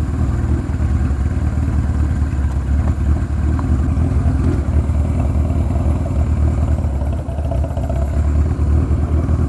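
The air-cooled inline-four engine of a 1980 Kawasaki KZ1000 motorcycle running steadily while the bike is ridden over a bumpy unpaved road.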